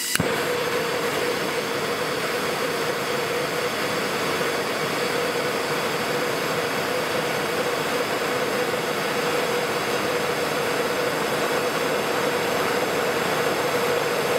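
Bernzomatic TS8000 trigger-start propane torch lit with a click, then burning with a steady rushing hiss and a faint steady mid-pitched tone as its flame heats a copper ring red-hot to fuse its ends.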